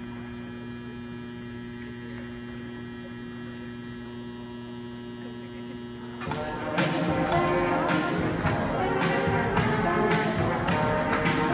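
A steady hum, then about six seconds in a marching band of brass and drums strikes up loudly, with drum beats about twice a second under the brass.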